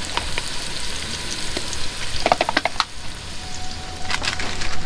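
Spices sizzling in hot mustard oil in a pot on a gas stove as the masala is fried and stirred. There is a steady hiss, with a quick cluster of metal knocks about halfway through and a few more near the end.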